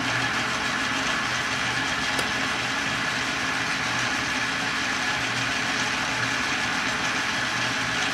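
Metal lathe running at a steady speed, its spindle turning a brass blank held in a collet: a steady mechanical hum with a thin, high whine.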